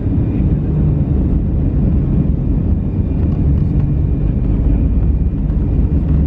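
Airbus A319 jet engines heard inside the passenger cabin during departure: a loud, steady low rumble with a faint high whine above it.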